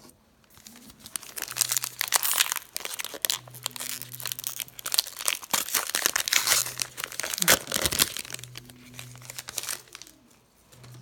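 A 2018 Topps Allen & Ginter trading card pack wrapper being torn open and crinkled by hand, a dense run of crackling with the loudest crackle about seven and a half seconds in.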